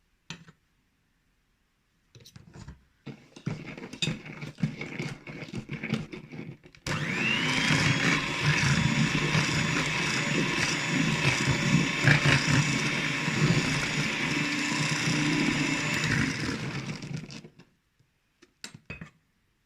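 A few light knocks and clinks against a bowl, then an electric mixer starts with a short rising whine. It runs steadily for about ten seconds, beating flour gradually into chocolate cake batter, and stops.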